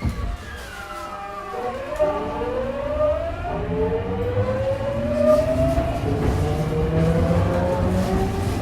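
Tokyu 9000-series train's GTO-thyristor VVVF inverter singing as the train pulls away and accelerates: several tones slide up and down in pitch over the rumble of the motors and wheels.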